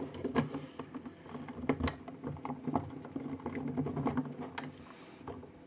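Hard plastic parts of a transforming robot-dinosaur toy figure clicking and knocking as it is handled: an irregular string of small clicks, the sharpest about two seconds in.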